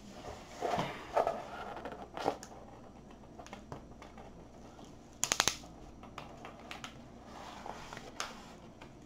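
Plastic release film on a diamond painting canvas crinkling and rustling as it is lifted and handled, with a quick run of four or five sharp crackles about five seconds in.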